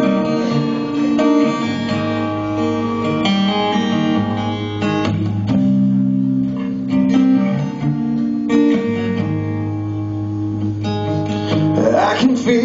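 Acoustic guitar and bass guitar playing a slow song intro live, the guitar's chords ringing over a steady bass line and changing every couple of seconds.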